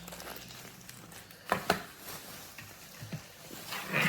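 A few light clicks and knocks of a tripod stand and its parts being handled and adjusted.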